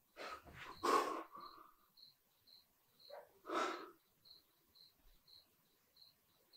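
Two loud breaths, about a second in and again near the middle, over a faint cricket chirping steadily about twice a second.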